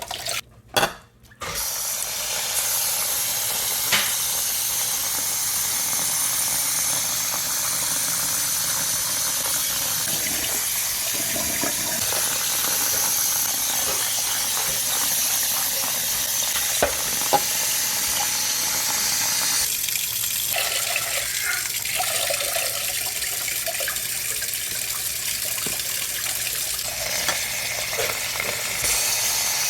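Tap water running steadily into a pan of soaked black-eyed peas as their skins are washed off, starting about two seconds in, with a few small knocks.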